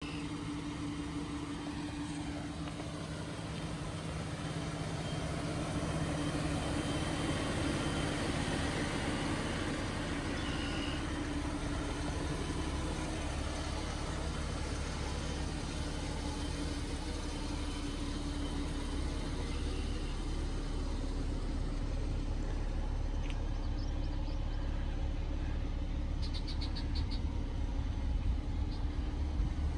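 Dodge Durango engine idling steadily: a low hum with a low rumble underneath, growing a little louder near the end.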